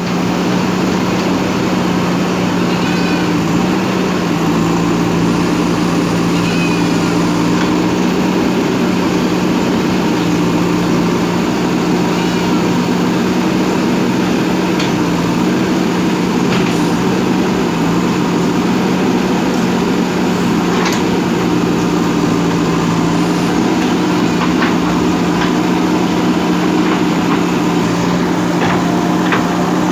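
JCB backhoe loader's diesel engine running steadily under work, with a few short high squeaks in the first half and a few sharp knocks later.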